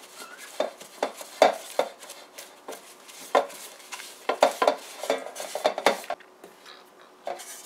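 Paper towel rubbing margarine around the inside of a metal Bundt pan: irregular short scrapes and swishes, with a few light knocks of the pan as it is turned on the counter.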